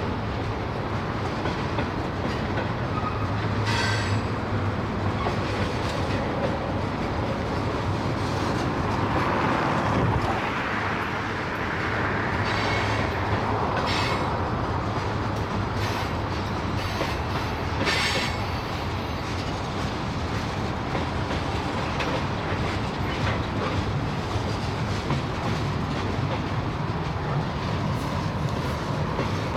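Freight cars of a mixed freight train, mostly tank cars, rolling past: a steady rumble and clatter of steel wheels on the rails. A few brief wheel squeals come through, about four seconds in and again around thirteen to eighteen seconds.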